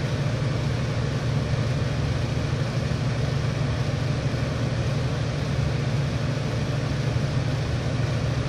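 A steady low mechanical drone with a hiss over it, like machinery or an engine running, unchanging in pitch and level.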